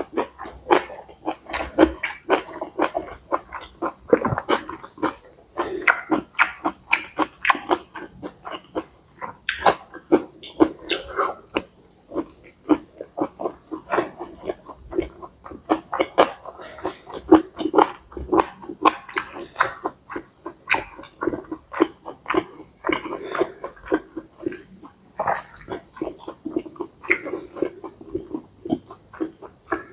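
Close-miked mouth sounds of someone eating pad see ew: chewing and slurping stir-fried flat rice noodles, heard as a dense, uneven run of wet clicks and smacks.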